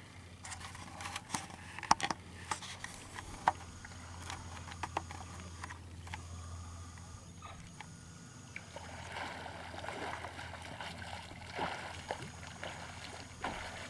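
Lake water splashing and sloshing around a person wading in waist-deep and then starting to swim, with a few sharp clicks in the first few seconds and fuller, busier splashing from about nine seconds in.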